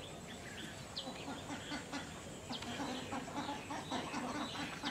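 Domestic fowl clucking in a quick run of short low calls, about four a second, with small birds chirping.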